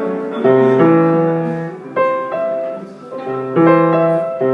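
A piano being played slowly: a chord over a low bass note struck about every second and a half, each left to ring and fade.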